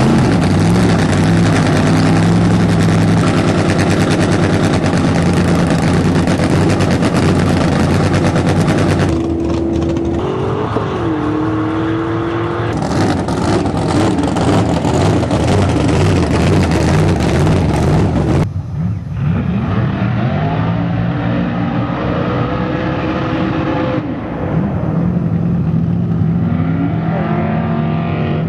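A supercharged, alcohol-injected 532 cubic inch big-block Ford V8 in a drag pickup, running loud and being revved up and down. It comes in several edited takes that change abruptly.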